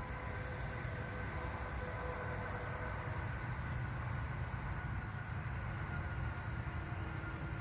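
Crickets chirring steadily in one continuous high note, over a low rumble and hiss.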